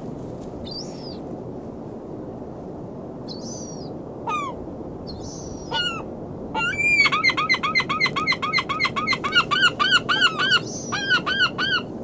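Gulls calling over a steady rush of surf: a few single calls, then from about halfway a fast run of repeated calls, several a second, that breaks off briefly near the end and starts again.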